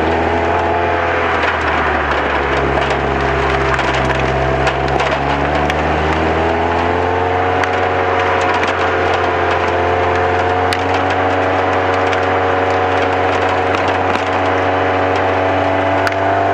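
Lotus Elise S2 engine running under load, its note dropping for a few seconds, then climbing again about six seconds in and holding steady, under heavy rushing wind and road noise.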